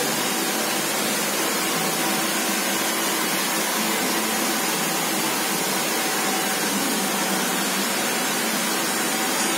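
A hand-held hair dryer blowing steadily.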